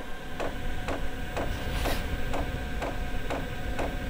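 Fuel dosing pump of a Chinese diesel air heater ticking evenly, about twice a second, over a steady hum, as it pumps diesel to the burner during start-up.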